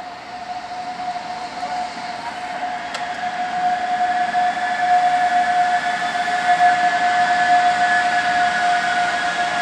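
ÖBB electric locomotive hauling a passenger train slowly into the station, with a steady high whine that grows louder as the train comes closer, more high tones joining it about halfway through.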